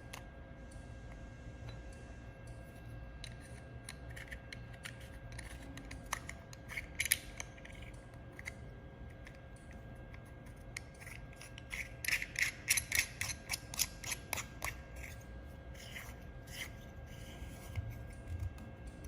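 Small clicks, taps and rubbing from handling the laser welder's protection lens and its holder, with a quick run of sharp clicks about two-thirds of the way through, over a faint steady hum.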